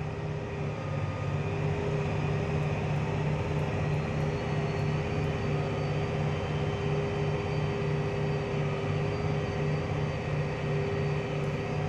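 John Deere 8260R's six-cylinder diesel engine running hard, heard from inside the cab, with a steady whine above the engine note. It is labouring under the heavy draft of a 4-metre subsoiler in compacted ground, with about 19% wheel slip.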